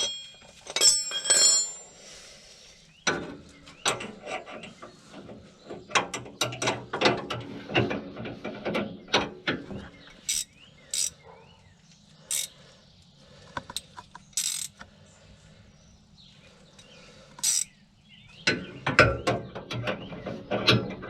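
Wrench ratcheting on a sway bar end link's top nut, in irregular runs of sharp clicks, with a few ringing metal clinks at the start.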